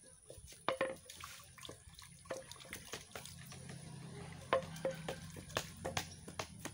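Water splashing and dripping, with many scattered clinks and knocks, some briefly ringing, as from handling a bowl or pot; a low steady hum comes in about halfway through.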